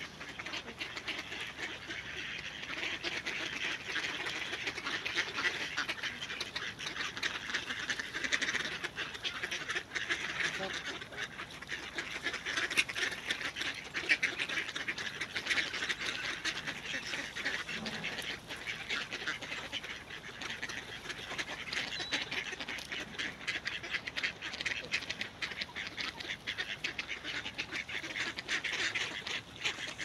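A large flock of mallards quacking and chattering continuously, many calls overlapping without a break.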